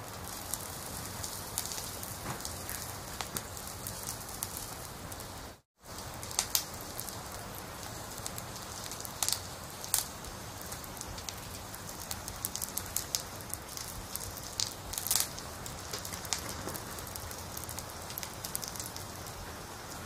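Wood fire crackling inside a wood-burning stove, with a steady hiss and frequent irregular sharp pops. The sound cuts out completely for a moment about six seconds in.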